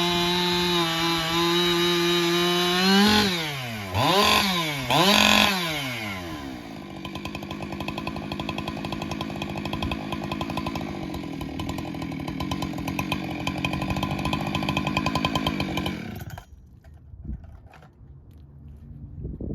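Husqvarna 585 two-stroke chainsaw, carbureted, running at high revs, then rising in pitch with two quick throttle blips. It drops to a steady idle with a rapid sputtering beat, and the engine is switched off about sixteen seconds in, leaving a few light knocks.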